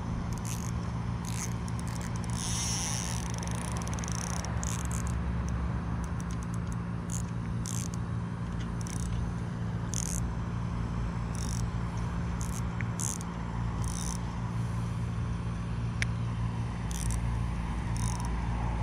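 Spinning rod and reel worked while a hooked bass is played on the line: short scratchy bursts about once a second over a steady low hum.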